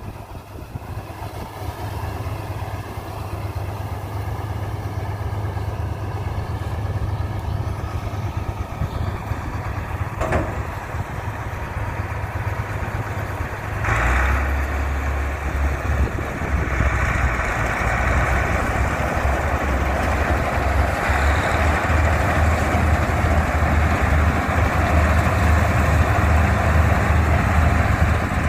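Mahindra combine harvester's engine running steadily, growing louder and busier about halfway through as the machine works into the standing wheat, with one short knock shortly before.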